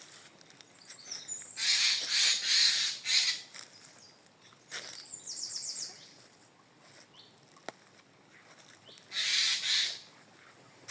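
Wild birds calling: harsh, noisy calls in two spells, about two seconds in and again near the end, and a short rapid trill of high notes in between.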